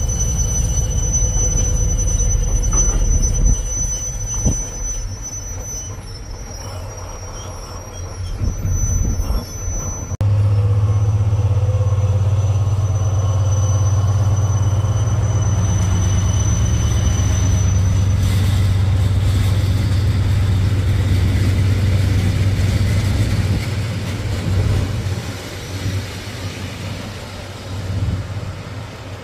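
A diesel freight locomotive and its train of bogie tank wagons passing close by. There is a heavy low rumble, then from about ten seconds in a loud steady engine drone as the locomotive goes by. Near the end the wagons' wheels rumble and squeal on the rails.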